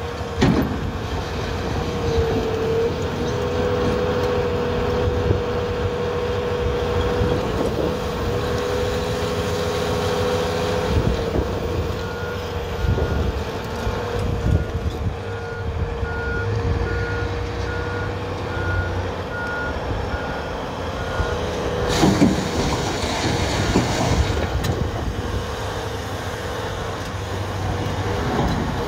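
Cat 374F excavator's diesel engine running under load, with a steady whine as it digs blasted limestone. A Komatsu HD405 dump truck's reversing alarm beeps evenly for several seconds as it backs in. Past the middle comes a loud crash of rock, followed by a rumble.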